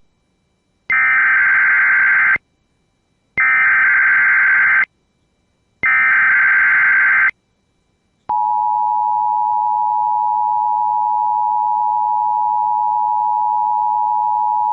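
Emergency Alert System broadcast tones: the digital SAME header sent three times as identical warbling data bursts, each about a second and a half long with about a second between them, then the steady two-tone EAS attention signal (853 and 960 Hz sounded together) starting about eight seconds in and holding. They announce a required monthly test of the alert system.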